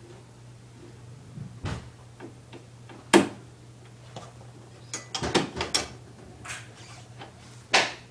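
Scattered knocks and clicks of lawnmower parts and fasteners being handled during assembly: a sharp knock about three seconds in, a quick run of clatters around five seconds, and another knock near the end, over a faint steady hum.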